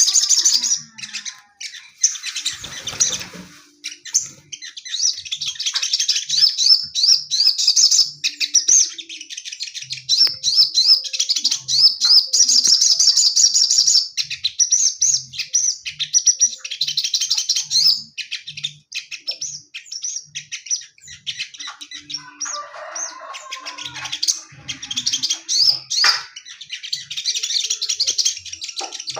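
A male sogon songbird sings in long runs of rapid, high chirping notes, broken by a couple of short pauses. The female placed near it sets it off, a way of getting it to sing more.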